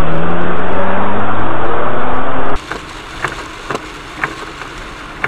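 Vehicle engine accelerating, very loud and distorted, its pitch rising steadily. About two and a half seconds in it cuts off abruptly to the hiss of heavy rain and tyres on a wet highway heard inside a car, with sharp ticks about twice a second from the windscreen wiper.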